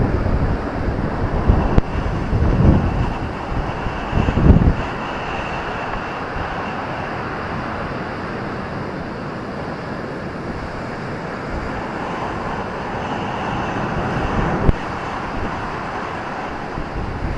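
Ocean surf washing on a beach, a steady rushing that swells and eases, with a slow build toward the end. Wind buffets the microphone with low rumbling gusts during the first few seconds.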